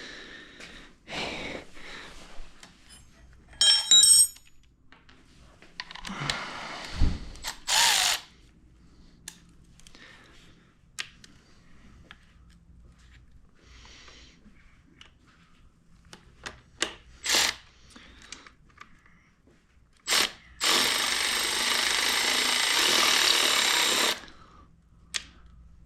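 Small clicks and knocks of screws, parts and tools being handled. About 20 seconds in, a power drill runs steadily for about three and a half seconds, driving in a blinker mounting screw.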